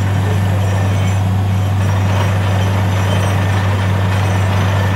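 Borewell drilling rig running steadily: a loud, unbroken low engine drone under a wide hiss.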